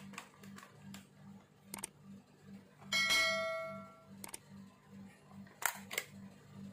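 Light plastic-and-metal clicks and knocks as a holographic sight is pushed onto the rail of an airsoft HK416 AEG, with a bright metallic ring about three seconds in that fades over about a second, and a couple more clicks near the end.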